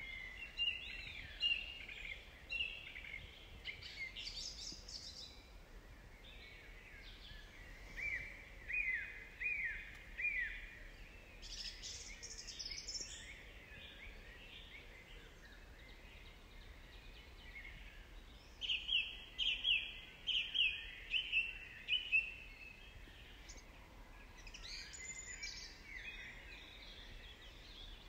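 Songbirds singing in a forest: several phrases of quick repeated chirps, the loudest a run of about seven notes past the middle.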